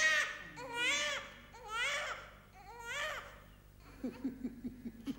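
Newborn baby crying, four high wailing cries about a second apart, a sign that the infant is breathing again after choking. Near the end a man's low chuckle.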